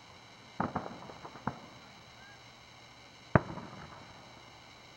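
Aerial fireworks shells bursting at a distance: a quick cluster of several cracks about half a second in, then one loud bang with a rolling echo about three seconds later.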